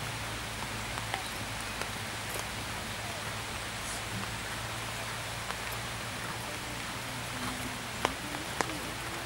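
Steady rain hiss with scattered sharp ticks, the two loudest near the end, over a low steady hum.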